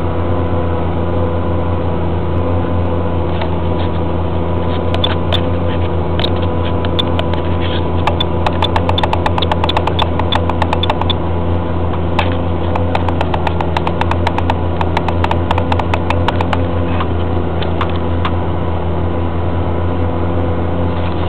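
Engine of a CAT Challenger MT765 tracked tractor running steadily under load while pulling a Spalding flatlift subsoiler. Rapid clicking and rattling sits over the drone from about four seconds in until about seventeen seconds.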